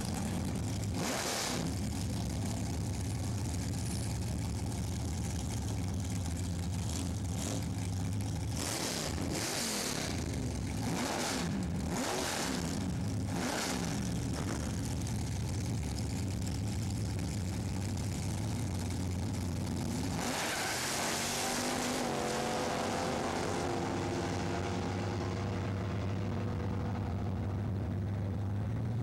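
Chevrolet drag car's engine running at the starting line with several sharp revs, then launching about twenty seconds in and accelerating away, its pitch climbing as it pulls down the strip.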